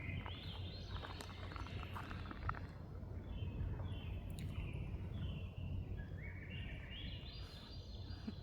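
A songbird singing: runs of short notes that climb in pitch near the start and again near the end, with shorter repeated notes between, over a low steady outdoor rumble.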